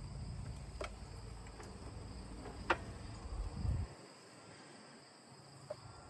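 Floor jack being let down, lowering an old torsion axle: a few sharp metallic clicks about one, three and six seconds in. Wind rumbles on the microphone and stops about four seconds in.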